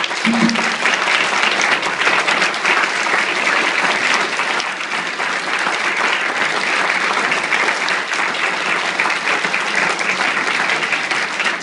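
Audience applauding steadily: many people clapping together at the end of a reading. The clapping is full from the start and eases only slightly near the end.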